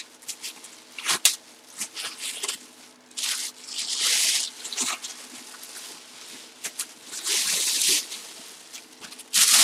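Bubble wrap and a plastic bag crinkling and rustling as a full-size football helmet is unwrapped by hand. The sound comes in several bursts of crackle, with sharp clicks between them.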